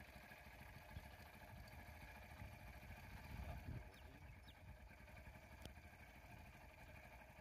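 Faint vehicle engine idling with a rapid low pulse. It swells briefly about three and a half seconds in, and there is a single sharp click near the end.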